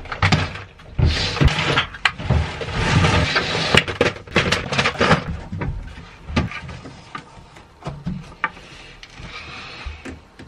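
Clear plastic parts boxes clattering and sliding onto a wooden shelf, with many sharp knocks and scraping in the first five seconds. After that come fewer, quieter knocks as a hinged wooden board is swung up against the shelf.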